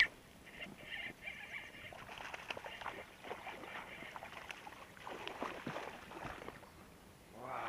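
A sharp knock right at the start, then a hooked fish thrashing and splashing at the surface in irregular bursts while it is played on a casting rod.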